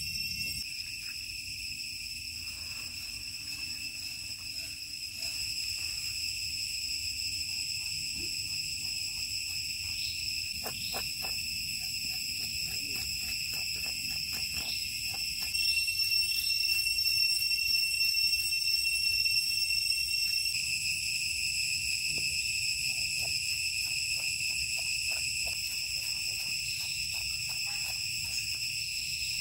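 A steady chorus of insects, several even high tones held throughout, which changes abruptly and grows a little louder for a few seconds from about the middle. Underneath come scattered light clicks and scrapes of a knife working on a snake's scales.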